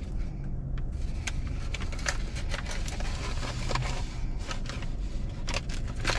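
Steady low hum inside a parked car's cabin, with scattered light clicks and crinkles of hands handling things, ending with a paper food wrapper being opened.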